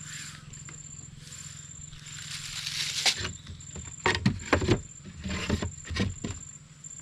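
Rustling and a cluster of sharp knocks and clatter from gear being handled in a small boat, loudest about four and six seconds in. Under it run a steady low hum and a high insect-like tone repeating in short pulses, about one a second.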